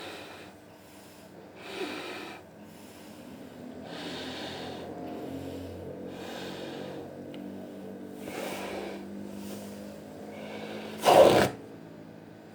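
Heavy snorting breaths about every two seconds over a low, drawn-out growling rumble, with one much louder burst near the end.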